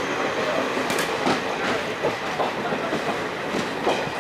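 Passenger train coaches running and accelerating, heard from aboard: steady rumble of wheels on rail, with sharp paired clicks as the wheels cross rail joints.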